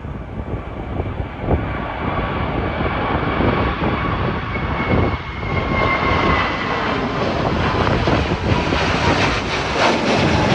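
Jet airliner taking off, its engines running at takeoff power: a dense, steady noise with a faint whine that grows brighter and fuller over the seconds.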